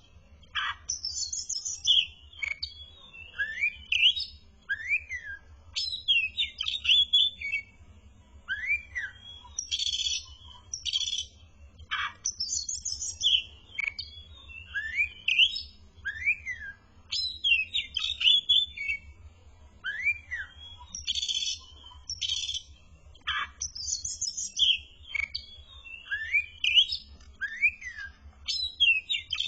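Oriental magpie-robin (kacer) singing continuously in full, busy song. Clear whistled notes that rise and fall alternate with harsh, scratchy phrases, a new phrase about every second.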